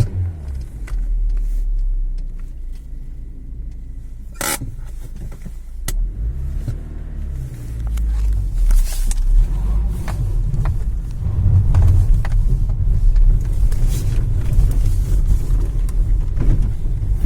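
Citroën C3's engine pulling in first gear up a steep iced-over street, running louder and heavier in the second half. There is a short rise and fall in engine pitch around six seconds in and a single sharp click about four and a half seconds in.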